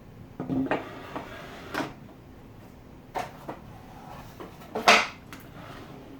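Handling noises from repositioning a crosscut jig and workpiece: a scrape and a few separate knocks, the loudest about five seconds in.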